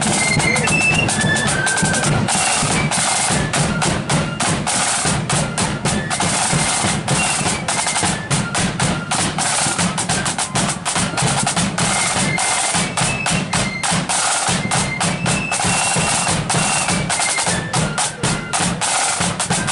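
Marching flute band playing a march: the flutes carry a high melody over dense, fast snare drumming and steady bass drum beats.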